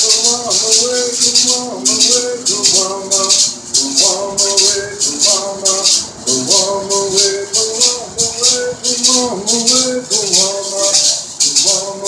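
Kumeyaay bird song: men's voices singing a traditional chant over the steady rhythmic shaking of a gourd rattle.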